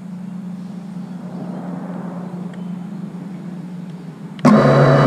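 FPV quadcopter's motors humming steadily at idle, then about four and a half seconds in they spin up abruptly to a loud, steady buzz.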